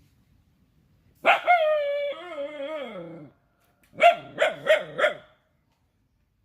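Rajapalayam dog vocalising: one long, wavering, howl-like cry of about two seconds that drops in pitch as it ends, then four quick barks.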